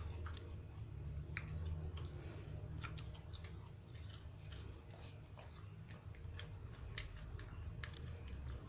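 Small dog (Pekingese) chewing a milk calcium biscuit: irregular crisp crunches and clicks of teeth, over a low steady hum.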